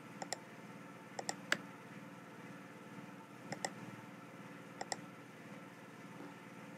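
Computer mouse and keyboard clicks, mostly in quick pairs, about five bursts spread over the few seconds, over a faint steady hum.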